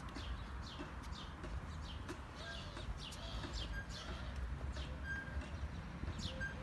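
Small birds chirping outdoors: short, quick downward chirps about two a second, with a few brief higher notes, over a low steady rumble.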